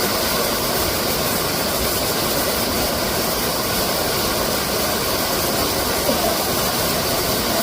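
Waterfall rushing: a steady, even wash of falling-water noise.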